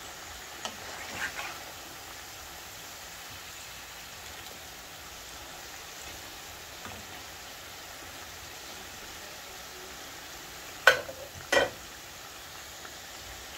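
Frozen chips deep-frying in a pan of hot oil, a steady sizzle throughout. A metal turner stirs them, with two sharp knocks against the pan near the end.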